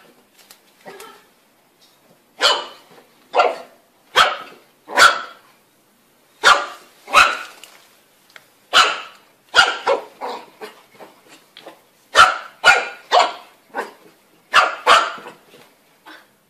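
Puppy barking at its own reflection in a mirror: short, sharp, high yaps, often in pairs or quick runs of three or four, about fifteen in all.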